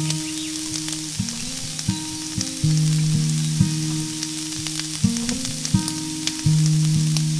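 Small fish frying in hot oil in a miniature steel pan: a steady sizzle with scattered crackles and pops. Background instrumental music of held, stepping notes plays over it.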